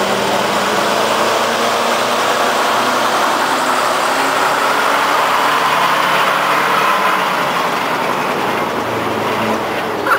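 Engines of vintage fire trucks running at low speed as they pass close by in slow procession, a steady mechanical noise.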